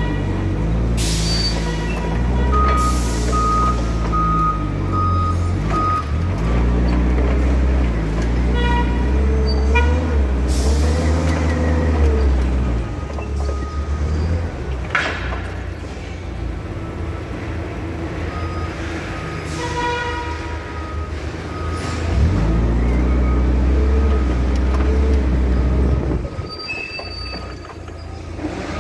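Forklift driving: its motor runs with a low hum whose pitch rises and falls as it moves, a beeping reverse alarm sounds in short runs a few times, and there are several short hisses.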